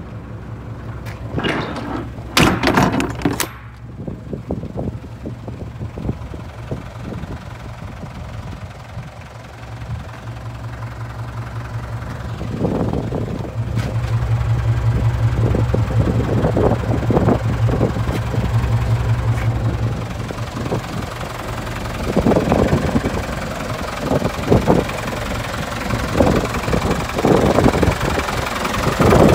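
Mitsubishi Canter truck's engine idling steadily, with a low hum that grows louder for a few seconds around the middle. A few sharp knocks come near the start, with more scattered knocks later on.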